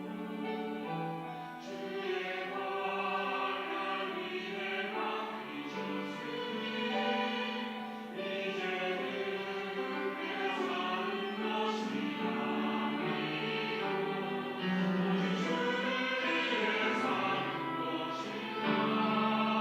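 Church choir singing a sacred anthem, several voice parts in harmony holding sustained chords that move from one to the next.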